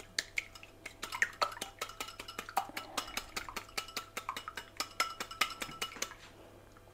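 Wire whisk clinking quickly against a glass mixing bowl, beating eggs and sugar by hand, with short ringing ticks about five times a second; the strokes thin out and go quieter near the end.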